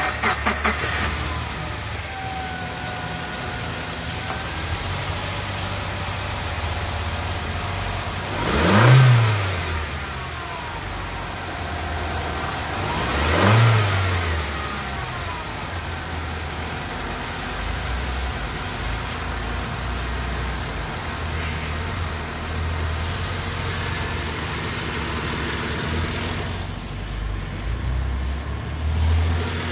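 2008 Suzuki Grand Vitara's 2.0-litre petrol four-cylinder engine idling steadily under an open bonnet. The throttle is blipped twice, about nine and thirteen seconds in, each rev rising and falling quickly back to idle.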